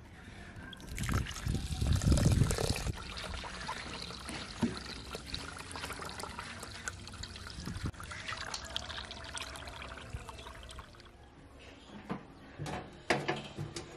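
Water from a tap pouring into a pot of raw rice, louder for the first couple of seconds and then steady. Near the end come a few knocks as the pot is set on a gas stove.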